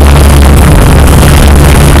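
Multirotor drone's motors and propellers humming steadily and loudly on the aircraft's own microphone, the low hum wavering a little in pitch.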